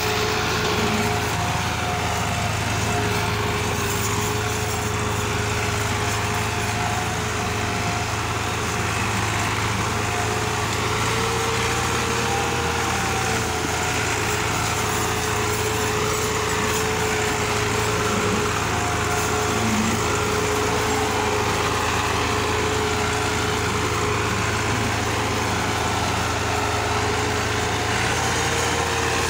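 Massey Ferguson 260 tractor's diesel engine running steadily under heavy load as it pulls a trolley piled with sugarcane, with a steady whine in its note.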